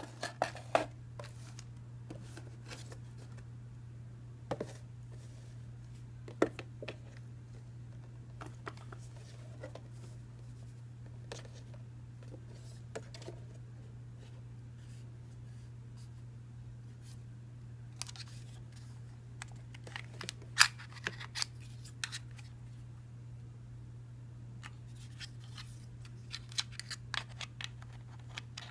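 Small plastic toy drone and its plastic remote controller handled by hand: scattered light clicks and clacks. The clicks come in quick flurries around two-thirds of the way through and again near the end, as the controller's battery cover is pried open.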